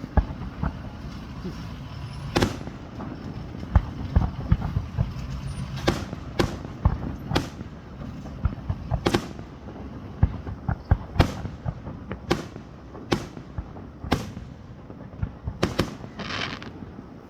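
Fireworks display: a run of sharp bangs from bursting shells, irregularly spaced and sometimes in quick pairs, with many smaller pops between them.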